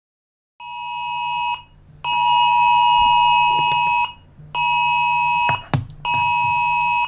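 Emergency-alert-style electronic alarm tone sounding in four long beeps, the second about twice as long as the others: a steady shrill tone with a buzzy edge over a low hum. A sharp click cuts in between the third and fourth beeps.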